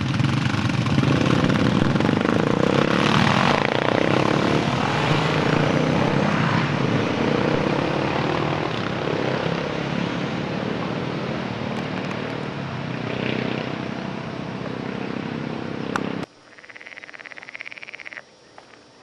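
Motorcycles passing on a road: a loud, steady engine noise that slowly fades. It cuts off abruptly near the end, leaving a much quieter outdoor background with a faint, steady high-pitched sound.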